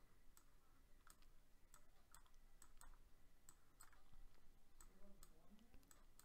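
Faint, irregular clicking of a computer mouse button, about two clicks a second, as lines are drawn with the mouse.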